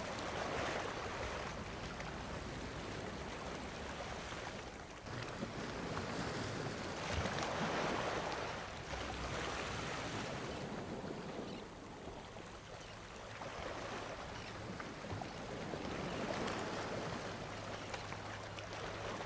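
Gentle surf washing on a sandy shore with wind, the noise swelling and easing a few times.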